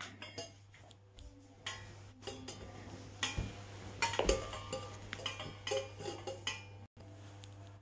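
Stainless steel utensils, plates and cylindrical canisters, clinking and clattering as a child handles them and stacks one canister on another: a run of irregular metallic clinks, loudest about halfway through.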